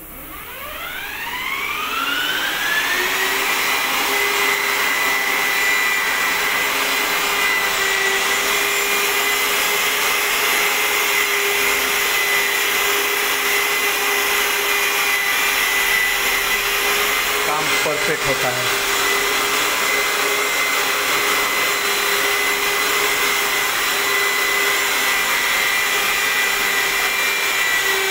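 Electric wall putty sander with its hose-connected dust-extraction vacuum switching on. The motor winds up with a rising whine over the first two to three seconds. It then runs steadily with a high whine and rushing air while sanding putty on a wall.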